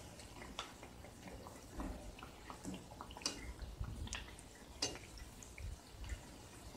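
Spinach and urad dal vadas deep-frying in hot oil in a kadai: soft sizzling and crackling with many small pops, and a few sharper clicks while they are turned over with a perforated slotted spoon.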